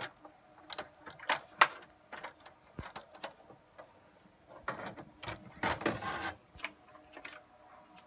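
Scattered clicks and knocks as a server motherboard is worked loose and lifted out of its metal chassis. About five seconds in comes a longer spell of scraping and rattling.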